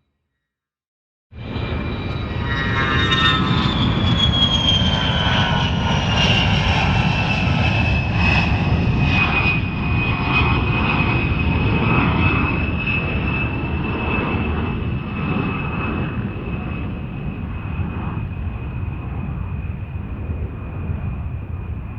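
Cinematic jet aircraft sound effect: after about a second of silence it cuts in suddenly, a deep rumble under a high whine that slides down in pitch over the first several seconds and then holds steady, easing off slightly near the end.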